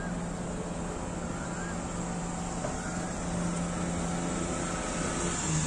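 Steady low engine drone over outdoor background noise, swelling a little about three and a half seconds in.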